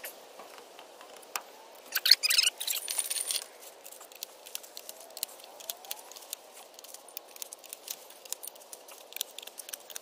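Light metal parts of a OneTigris folding camp cot clinking and rattling as it is handled, loudest for about a second and a half a couple of seconds in, then scattered light clicks.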